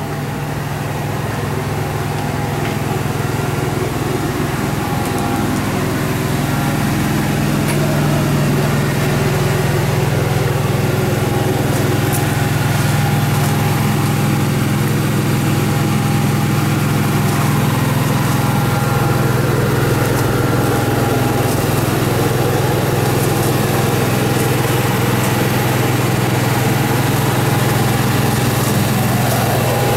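An engine running steadily at an even speed, a low hum that grows louder over the first several seconds.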